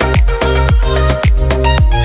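Background music with a steady dance beat, a deep kick drum hitting about twice a second.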